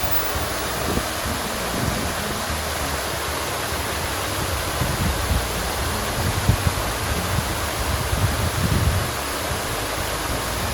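Water fountain splashing: a steady rush of falling water, with irregular low rumbles underneath.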